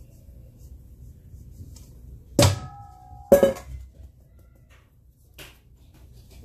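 Two sharp metal knocks about a second apart, each with a brief ring, as a mesh flour sieve strikes a stainless steel mixing bowl; a fainter tap follows near the end.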